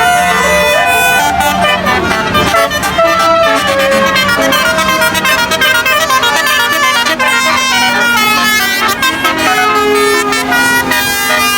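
Bus telolet horns playing rapid, stepped multi-tone melodies as tour buses pass, over vehicle engine noise.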